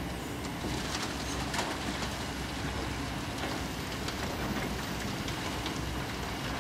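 Kobelco SK200 crawler excavator's diesel engine running steadily as the boom and bucket dig into the sand cliff, with scattered crackles and patters of soil and small stones falling and scraping against the bucket.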